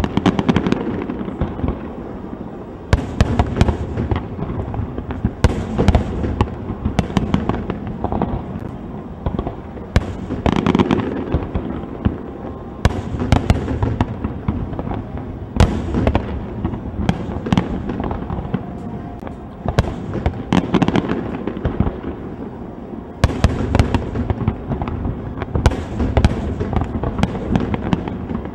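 Aerial fireworks shells bursting: a series of loud booms every few seconds, with crackling between them.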